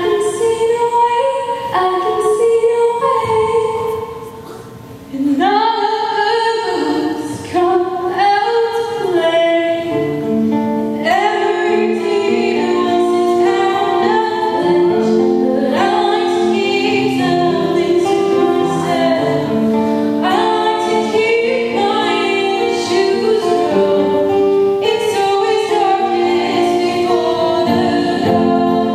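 Live female vocals with acoustic guitar accompaniment: a woman sings a melody, later joined by a second female voice. The music drops away briefly about four seconds in, and from about ten seconds in a fuller accompaniment with low held notes comes in under the voices.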